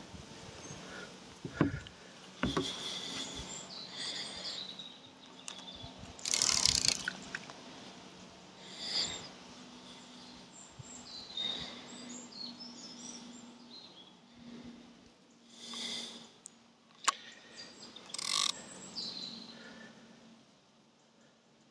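Outdoor ambience with scattered bird chirps, broken by several short rustling bursts and one sharp click a little after the middle.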